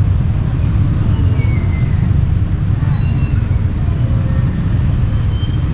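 Loud, steady low rumble of outdoor background noise, with a few faint short high chirps now and then.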